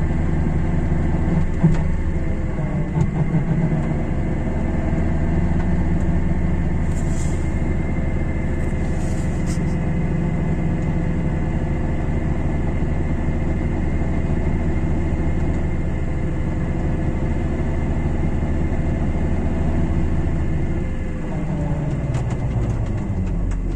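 Car engine running in fourth gear with a jacked-up front wheel spinning free, a steady hum of engine, drivetrain and wheel hub. This is a listening test for a droning worn hub bearing. Near the end the pitch falls as the revs drop and the wheel slows.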